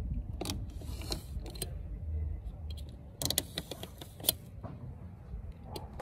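Utility knife blade poking and scraping through plastic sheeting laid over wooden boards, slitting drainage holes: a scatter of short sharp clicks and scratches, the sharpest about four seconds in, over a steady low rumble.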